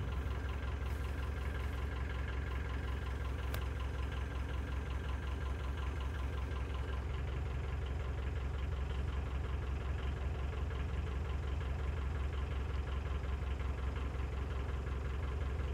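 Narrowboat's inboard engine running steadily at cruising speed, a low, even, fast-pulsing engine note.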